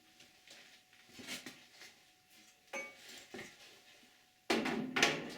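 Scattered knocks and rattles from things being handled, with a louder scraping clatter about four and a half seconds in.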